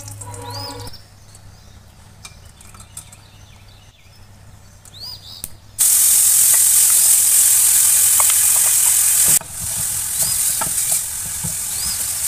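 Chopped onions frying in hot oil in a stainless-steel kadai. A loud sizzle starts suddenly about six seconds in and drops lower after a few seconds. Small scrapes and clicks of a wooden spatula stirring run through the sizzling.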